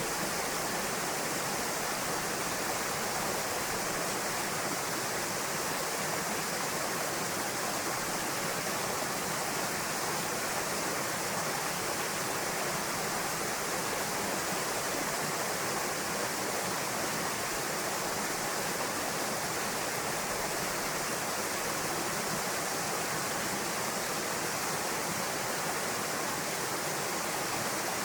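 A waterfall pouring into a pool: a steady, even rush of falling water that does not change.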